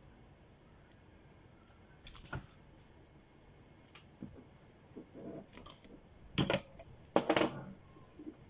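Small hard objects being handled and scraped on a work surface: scattered clicks and several short scrapes, the loudest two about six and a half and seven seconds in.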